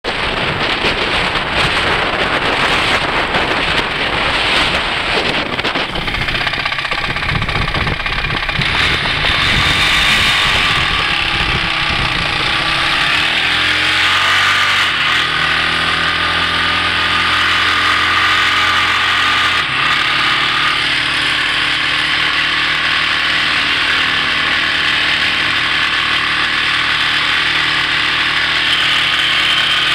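Off-road vehicle engine running, with rough rumbling wind noise on the microphone for the first ten seconds or so; from about 13 seconds in the engine settles into a steady, even drone.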